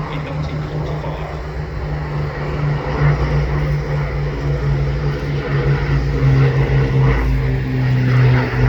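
Piston-engined Second World War propeller aircraft of the Battle of Britain Memorial Flight flying past, a steady engine drone that grows louder over the last few seconds.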